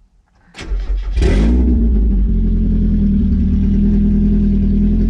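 A 1992 Mazda Miata's 1.6-litre four-cylinder engine cranks briefly and catches about a second in. It flares up in revs, then settles into a steady idle on freshly changed oil.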